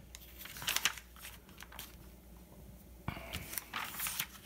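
Glossy magazine pages turned by hand, the paper rustling and crinkling in two spells: briefly near the start, and again from about three seconds in as the next page is flipped over.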